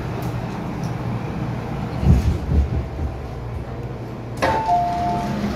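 MTR M-Train door-closing warning: a sharp click about four seconds in, then alternating two-tone beeps, over the steady low hum of the stationary train. A few dull low thumps come about two seconds in.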